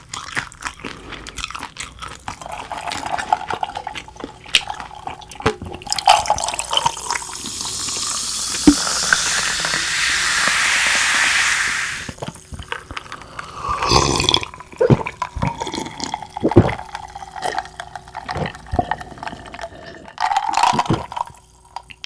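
A dark drink poured over ice into a glass: a hiss that builds for about five seconds and stops abruptly. Then several gulps of the drink, with ice clinking against the glass.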